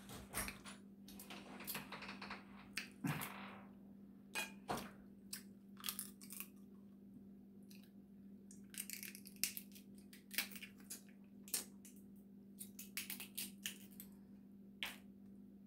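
Dungeness crab leg shells cracking and crunching as they are broken apart by hand, a run of sharp, irregular clicks and snaps, some in quick clusters, over a steady low hum.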